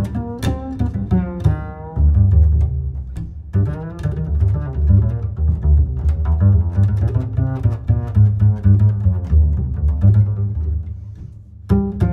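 Background music played on strings: a low double bass and cello line with plucked and bowed notes. It dips briefly near the end.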